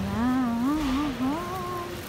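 A person humming a short tune, the pitch wavering up and down over a few notes and ending on a held, higher note.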